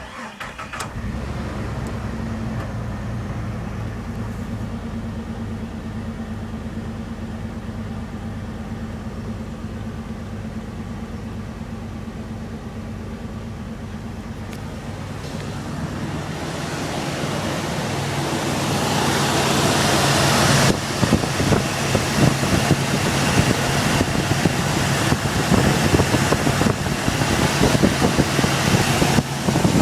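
Jeep TJ Wrangler engine catching and running with a misfire after a Seafoam treatment. Its steady hum grows louder and noisier from about halfway through, with rushing noise added near the end.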